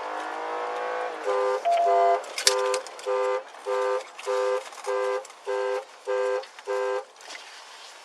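A vehicle engine speeds up, then a car horn sounds about ten short, evenly spaced honks in a steady rhythm.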